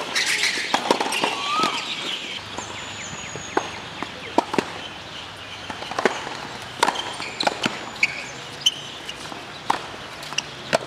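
Tennis balls struck by rackets and bouncing on outdoor hard courts, with sharp pops at irregular intervals from more than one court.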